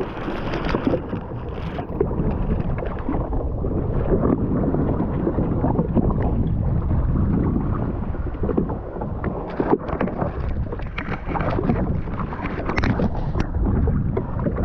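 Wind buffeting the microphone over water sloshing against a jet ski's hull, with a few short knocks in the second half.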